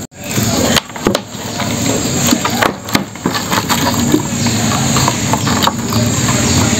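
Wire-mesh crab trap being handled, with short clicks and rattles of the wire, over a steady low hum.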